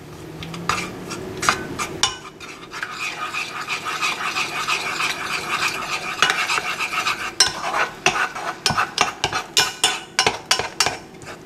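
A spatula stirring and scraping apricot jam and water around a saucepan, with repeated taps against the pot that come quicker in the second half.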